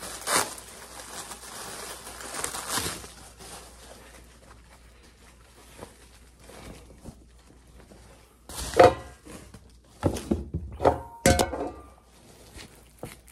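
Plastic bubble-wrap bag crinkling and rustling as it is handled and opened, with a few louder bouts of rustling in the second half.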